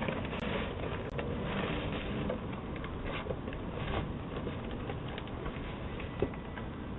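Steady outdoor background noise picked up by a doorbell camera's low-fidelity microphone, with a few faint clicks and a small knock about six seconds in.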